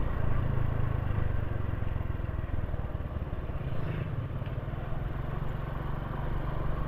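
Motorcycle running steadily while being ridden: a low, even engine hum under a steady rush of noise.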